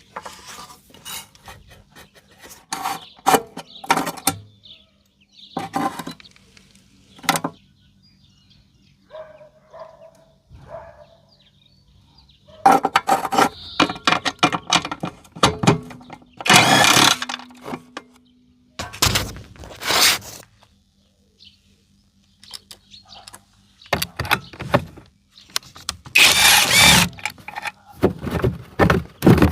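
Irregular clattering, knocking and scraping of metal parts and tools being handled, with several louder bursts of clatter lasting a second or two each.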